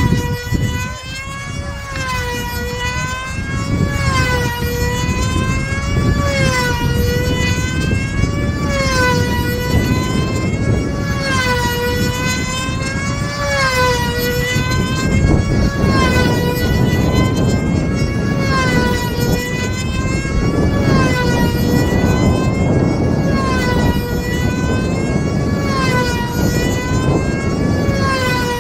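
Small high-revving two-stroke glow engine of a control-line combat model plane circling on its lines: a steady high whine whose pitch rises and falls about every two seconds, once per lap.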